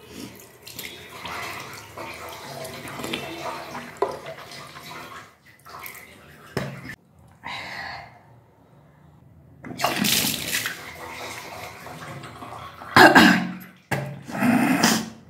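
A woman deliberately retching over a washbasin, with liquid splashing into the bowl and two loud gagging heaves near the end.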